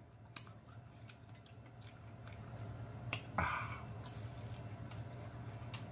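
Faint wet mouth clicks and smacks of a man eating, with a sharper click and a short bite sound about three seconds in as he bites into a catfish fillet. A low steady hum runs underneath.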